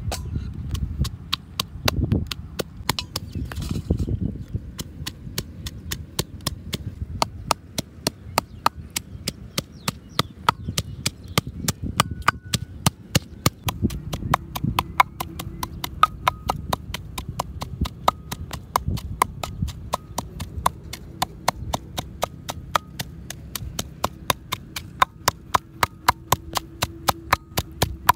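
Rapid, even knocking, about four sharp knocks a second, like food being chopped on a board, with a few heavier thuds in the first few seconds.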